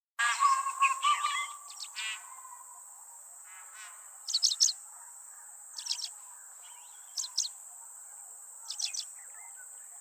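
Forest birds calling over a steady high-pitched insect drone. A burst of varied chirps and trills comes in the first two seconds, then a short repeated call about every second and a half.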